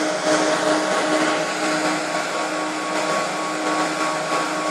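Cooling fans of a 2.5 kW Screen Service TV transmitter running, a steady rush of air with a constant hum of a few tones.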